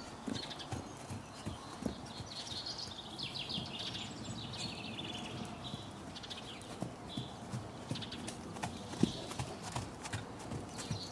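A Lusitano horse's hooves thudding dully and irregularly on a sand arena as it goes round on the lunge line. The loudest thud comes about nine seconds in.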